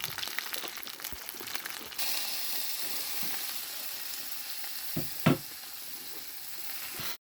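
Food sizzling in a hot frying pan, a steady hiss that steps up about two seconds in, with small crackles at first. Two short knocks about five seconds in, the second the loudest, like a utensil striking the pan.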